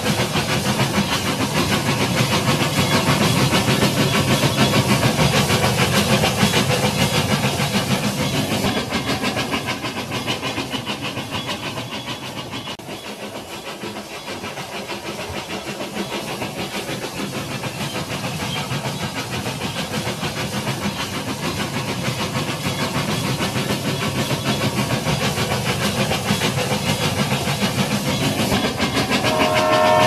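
Battery-powered toy steam-locomotive train running on plastic track: a steady whir and rapid clatter of its small motor and wheels, quieter around the middle and louder again as it comes closer toward the end. Right at the end a multi-tone train whistle sound effect starts.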